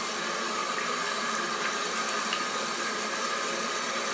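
Tap water running steadily into a sink basin over hands being washed.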